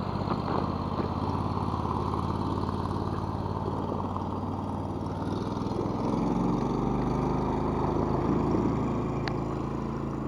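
Small boat motor running steadily, its note shifting about six seconds in.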